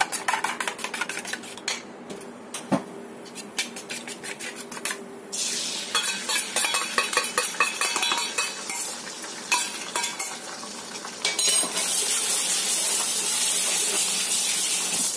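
Eggs beaten briskly in a metal bowl, a fast run of clinks, then poured into hot oil in a wok. A sizzle starts about five seconds in under more clinks, and becomes a loud, steady sizzle for the last few seconds as the egg fries.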